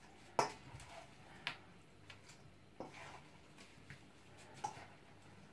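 A spoon knocking against a stainless steel bowl while chopped meat filling is stirred: four separate clinks about a second apart, the first the loudest, with faint squelching of the meat between them.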